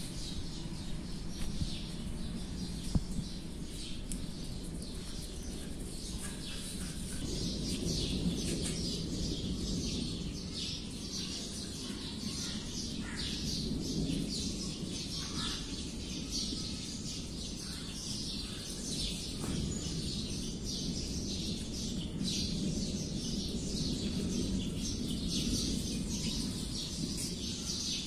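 Many small birds chirping over a steady low background noise, with a short knock about three seconds in.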